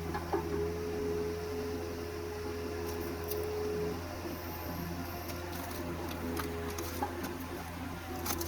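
Cat 247B3 compact track loader's diesel engine running steadily, with a steady whine that stops about halfway through and a few sharp cracks.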